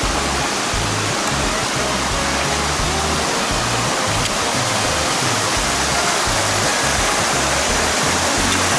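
Mountain stream water rushing loudly and steadily, with background music underneath.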